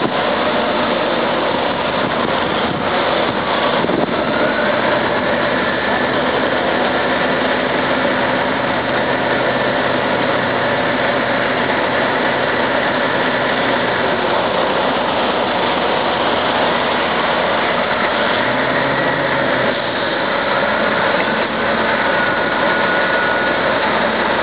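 Heavy diesel engines of a Tatra 815 dump truck stuck in mud and a crawler bulldozer, running steadily without revving.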